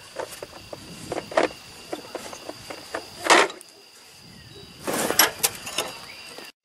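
A few sharp knocks and clatters of things being handled, the loudest a little over three seconds in and a cluster around five seconds, over a steady high-pitched chorus of insects.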